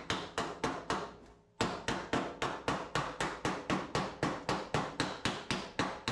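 Rapid, even hammer blows on the sheet-steel front body panel of a 1979 Ford F250, knocking out a dent, about five strikes a second, with a short pause a little over a second in.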